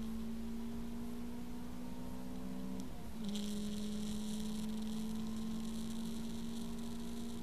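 A steady pitched hum with a few overtones, slowly drifting in pitch. It breaks and dips briefly about three seconds in, then holds steady again while a hiss joins it.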